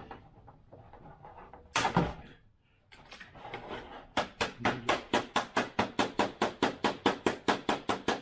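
A single sharp snap about two seconds in as a length of 1 mm piano wire is cut off with cutters, then a fast, regular run of sharp clicks, about five a second.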